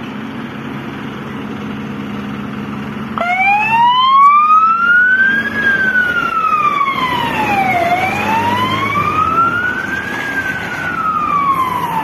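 Fire engine's engine running as the truck pulls out, then its siren switches on abruptly about three seconds in with a slow wail, rising and falling roughly every four to five seconds.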